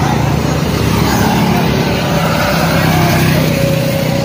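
Small motorcycle engine running as it passes along the road, its hum fading after about a second, with a fainter engine whine rising and falling later on.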